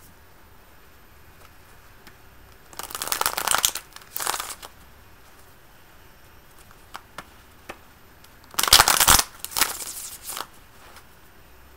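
Tarot deck shuffled by hand in four short bursts of riffling card noise, the loudest about nine seconds in.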